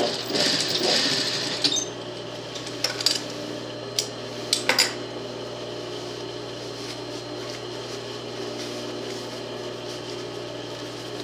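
Industrial Singer sewing machine stitching briefly and then stopping, followed by several sharp clicks and the handling of stiff faux-leather fabric, over a steady low motor hum.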